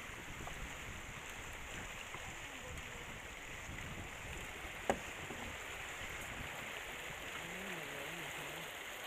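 Water rushing and splashing along the hull of a sailing yacht under way in a choppy sea, with a steady wash of wake and wind. A single sharp knock about five seconds in; faint voices near the end.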